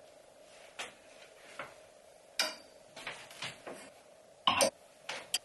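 Clothes hangers with metal hooks clicking and knocking against each other and the wardrobe rail as clothes are hung up: a run of short, irregular clacks, the loudest a double knock about four and a half seconds in.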